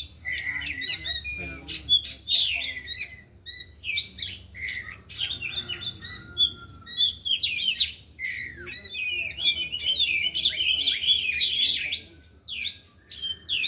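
Several Oriental magpie-robins (kacer) singing together: a busy stream of fast, varied whistles, trills and sharp notes that thins briefly near the end. The birds are singing their full learned repertoire (isian).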